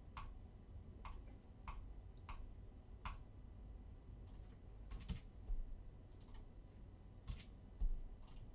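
Computer mouse clicks and keyboard keystrokes: about a dozen sharp, scattered clicks, fairly faint.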